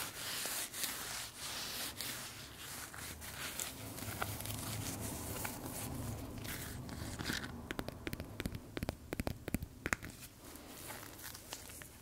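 Close-miked ASMR trigger sounds: scratchy rubbing and rustling of an object against the microphone, giving way about seven or eight seconds in to a quick run of sharp taps and clicks that grows quieter toward the end.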